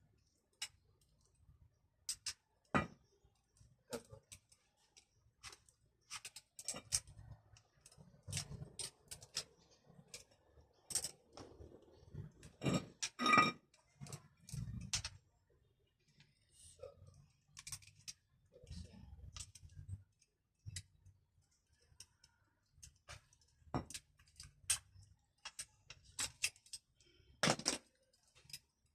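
Irregular clicks and light metallic clinks of hand tools and small parts being handled, spaced unevenly with short pauses.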